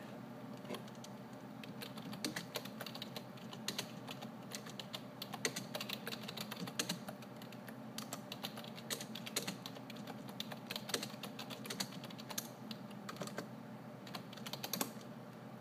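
Computer keyboard keys being tapped in irregular runs of typing, over a steady low hum.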